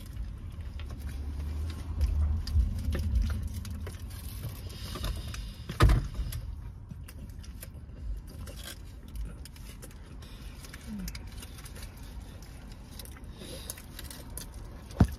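Close-up eating sounds of a burrito inside a car cabin: chewing and the handling of its foil wrapper and sauce cups on the dashboard, with a low rumble of handling in the first few seconds and one sharp knock about six seconds in.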